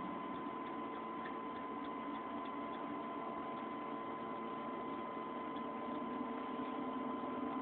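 Steady faint hiss with a constant high-pitched hum, and light ticks now and then; no engine is running.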